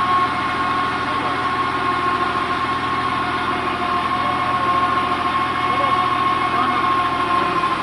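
TMR feed mixer wagon running with its engine at a steady drone, a constant high whine held over it.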